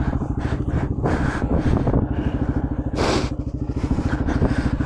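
Yamaha Blaster's two-stroke single-cylinder engine idling steadily, with a brief rustle about three seconds in.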